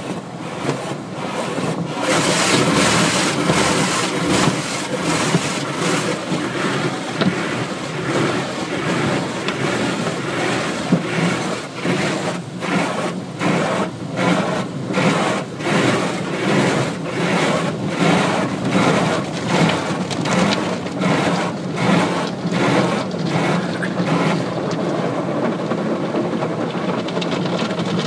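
Automatic car wash heard from inside the car: water spraying and cloth wash strips swishing over the body and glass. Through the middle stretch the strips slap the car in a steady rhythm, about three slaps every two seconds.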